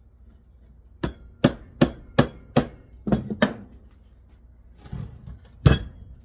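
Hammer blows on the metal housing of a bench grinder being dismantled: seven quick, sharp strikes about two or three a second, then a pause and one more hard strike near the end. The blows are an attempt to knock loose motor parts that seem to be welded in.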